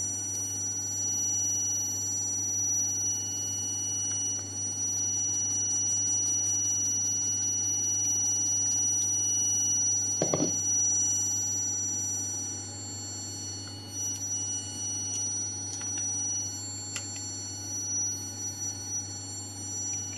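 Steady low hum with several high-pitched steady whining tones over it, and one dull knock about ten seconds in.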